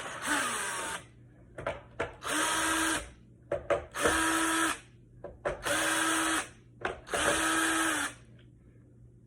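Cordless drill backing out the screws that hold a skateboard rail to the deck, run in five short bursts of about a second each with small clicks between them.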